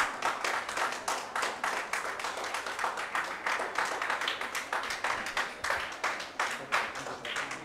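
A group of people clapping: a dense run of quick, overlapping claps that starts suddenly and thins out near the end.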